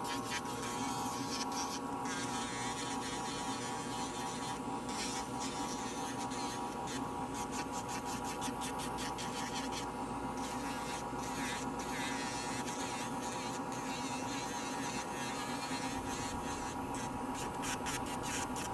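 Electric podiatry nail drill with a dust-suction hose running at a steady hum, its burr filing down a curled ingrown great toenail, with irregular scratchy grinding as it meets the nail.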